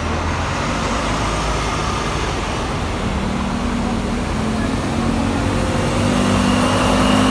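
Scania K230UB bus's five-cylinder diesel engine pulling away from the stop. The engine note climbs from about three seconds in and grows louder as the bus accelerates past.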